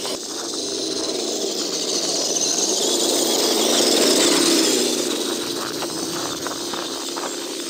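Radio-controlled Axial SMT10 mud truck driving over snow, its brushless electric motor and drivetrain whining and rising and falling in pitch with the throttle, with scattered short ticks.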